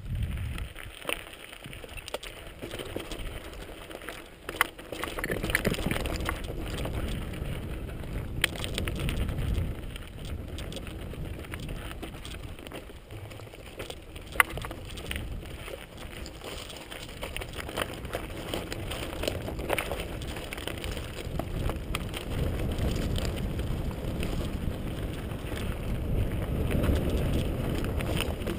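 Mountain bike rolling down a loose, rocky stone track: tyres crunching over stones and the frame and parts rattling, with a few sharp knocks, the loudest about halfway through. Wind buffets the microphone underneath.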